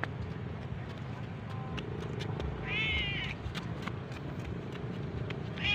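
A kitten meows once about three seconds in, a short call that rises and falls, and starts a longer, level meow right at the end.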